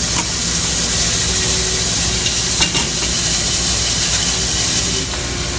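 Bandsaw running and cutting through a thick cork block, a steady hiss over the motor's low hum, dropping a little in level near the end.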